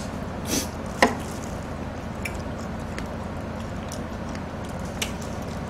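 Close-miked eating: a bite into a piece of sauced fried chicken, with one sharp click about a second in, then wet chewing with a few faint mouth ticks, over a faint steady hum.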